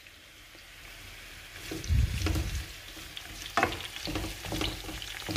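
Red bell pepper pieces sizzling in hot oil in a frying pan. From about two seconds in, a wooden spoon stirs them, knocking and scraping against the pan over the sizzle.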